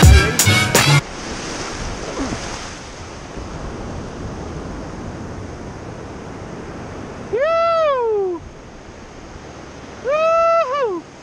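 Shallow ocean whitewater washing around, a steady surf hiss. Near the end come two long calls about three seconds apart, each rising then falling in pitch.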